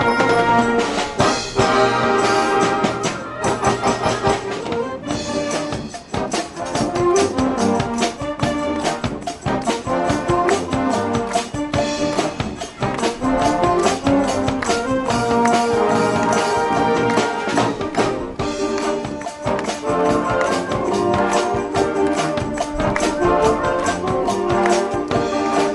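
Marching wind band playing an upbeat piece: brass section with trumpets and trombones over a steady, driving percussion beat.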